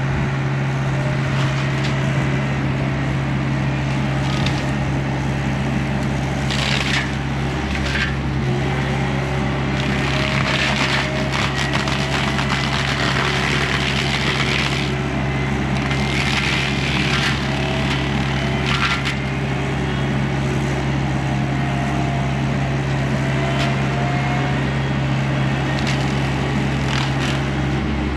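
John Deere 60P mini excavator running steadily with a forestry mulcher head chewing through brush and small trees, with repeated crackling and splintering of wood being shredded, busiest in the middle of the stretch.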